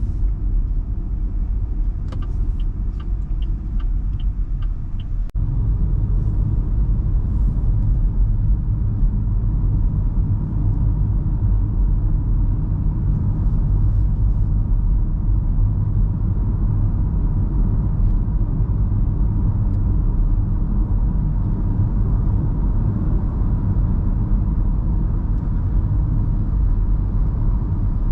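Steady low cabin rumble of an MG Hector Plus 1.5-litre turbo petrol SUV on the move, mostly road and tyre noise. About two seconds in comes a run of about seven short high beeps; the rumble breaks off abruptly a little after five seconds and then carries on.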